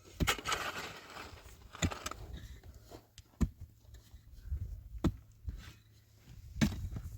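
Five sharp knocks at an even pace, about one every second and a half, with about two seconds of scraping after the first knock.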